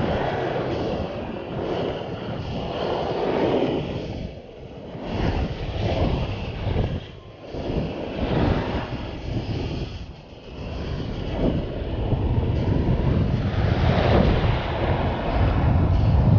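Wind buffeting the microphone over the wash of ocean surf, a low rumbling noise that swells and eases every few seconds.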